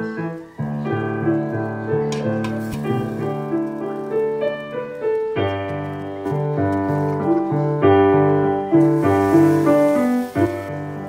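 Background piano music playing a melody. About nine seconds in, a brief hiss rises under it, the sound of the fish broth at a rolling boil.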